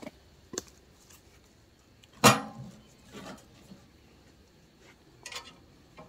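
Split pieces of seasoned white oak loaded into the firebox of a stainless-steel camp wood stove: one loud metallic clank with a brief ring about two seconds in, and a few lighter wooden knocks and taps before and after.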